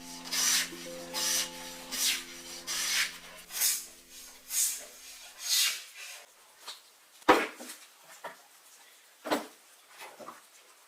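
A hand tool scraping across wood in seven short, even strokes, a little under a second apart, followed by a few sharp knocks on wood near the end.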